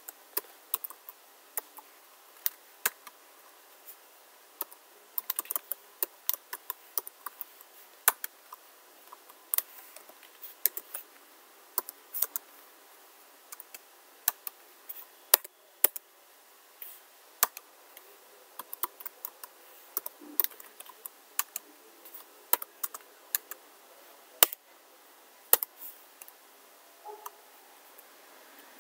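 Typing on a computer keyboard: irregular key clicks in quick runs, broken by short pauses.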